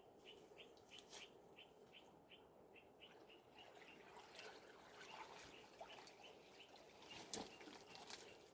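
Faint bird chirping: a steady run of short, high chirps, about four a second, that stops about three and a half seconds in, leaving faint scattered clicks.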